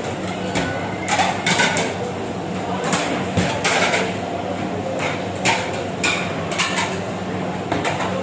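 Kitchen clatter of cooking utensils: irregular metal knocks and clinks, over a steady low hum.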